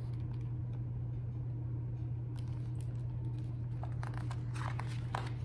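Steady low hum with faint rustling and soft clicks from a hardcover picture book being held and turned, the clicks coming more often near the end.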